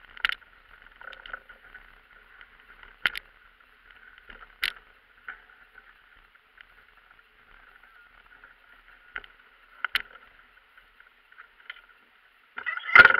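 Sharp, irregular knocks and clicks over a thin steady hiss: the sound of a small camera in a housing being carried and handled. There is a louder cluster of knocks near the end.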